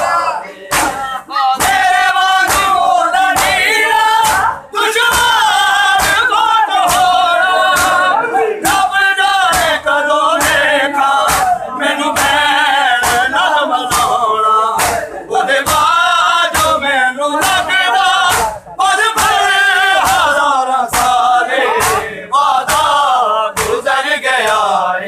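Men singing a noha, a Shia mourning lament, together. Over the singing comes a steady beat of open hands slapping bare chests in matam, the ritual chest-beating, roughly two slaps a second.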